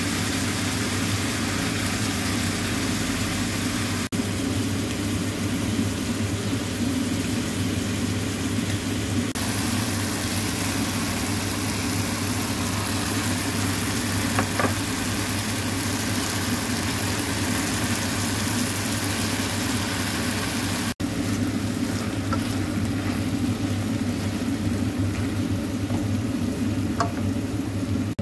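Chopped peppers, tomatoes and onion frying in oil in a pan: a steady sizzle over a low hum.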